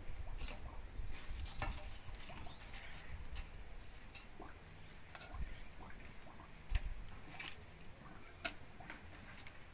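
Irregular light crackles and ticks from dried guajillo chiles toasting on a comal over a wood fire, with a few soft low thumps. A couple of faint high chirps come in, once near the start and once later.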